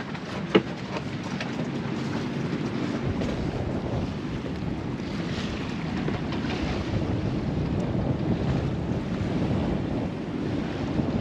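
Strong wind buffeting the microphone over the steady rush of choppy water along the hull of an Alberg 30 sloop under way. There is a single sharp knock about half a second in.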